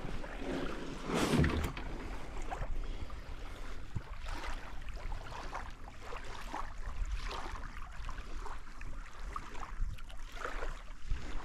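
Small wind-driven waves lapping and splashing on a sandy lakeshore, with wind rumbling on the microphone; one louder splash about a second in.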